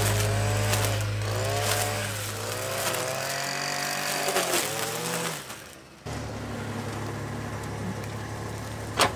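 Petrol brush cutter running, its engine pitch rising and falling as it cuts through weeds. About six seconds in it gives way to a steadier, lower engine of a mini excavator, with a sharp knock near the end.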